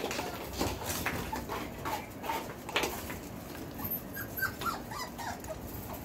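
Four-week-old Belgian Malinois puppies at play: several brief high whimpers and yips, over many short clicks and scuffles as they move about on a tile floor.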